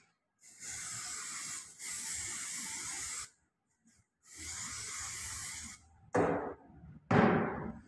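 Aerosol can of red dye penetrant spraying onto a metal test piece: a steady hiss for about three seconds, then a second burst of about a second and a half, applying penetrant for liquid penetrant testing. Two short, louder sounds follow near the end.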